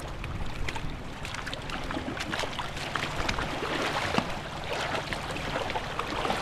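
Water splashing and trickling around a small boat, many small splashes and drips over a low steady hum.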